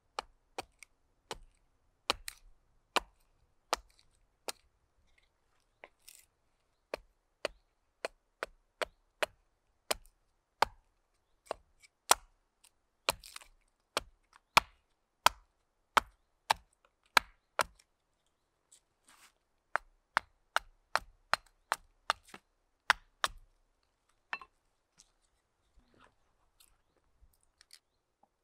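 Carving hatchet chopping a wooden spoon blank that stands on a stump chopping block. It gives a long series of sharp chops, about two a second, with a short pause partway through. The chops stop a few seconds before the end.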